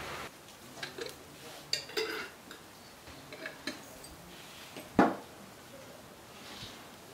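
Scattered light clinks and knocks of glass jars being handled and set down on a wooden table, a few with a short ring, and one louder knock about five seconds in.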